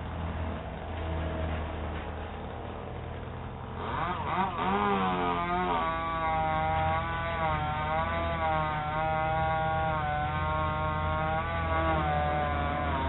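Tree-removal power equipment running, heard through a doorbell camera's microphone: a steady low engine hum underneath, and a higher small engine that revs up about four seconds in and then runs on with its pitch wavering up and down under load.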